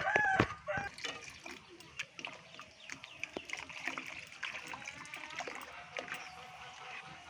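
Hot water poured from a steel bowl into mashed moong dal in a kadai, trickling and splashing, with a spoon clicking and scraping against the pan as the water is stirred in. A brief pitched call sounds at the very start.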